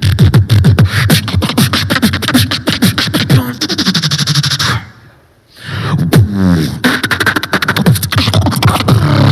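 Solo human beatboxing through a handheld microphone and speakers: fast drum-like kick and snare patterns with deep falling bass kicks. About five seconds in it stops dead for half a second, then comes back with pitched gliding tones and more quick percussion.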